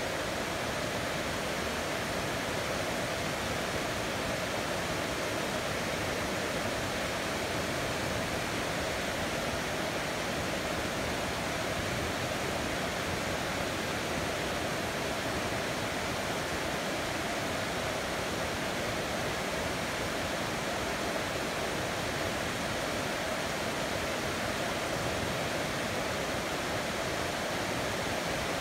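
Heavy rain pouring down steadily on a city, an even, unbroken hiss.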